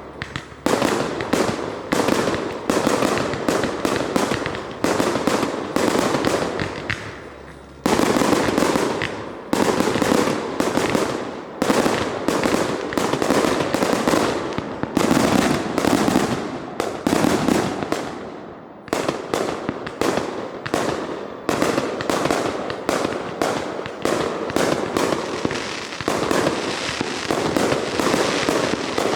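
Fireworks going off in a continuous barrage of rapid explosions and crackling reports, many a second, easing off briefly about 7 and 18 seconds in before building again.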